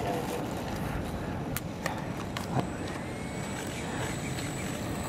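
Wind rumbling on the microphone, with a faint rising whine of a small RC plane's motor as it taxis, and a few light clicks.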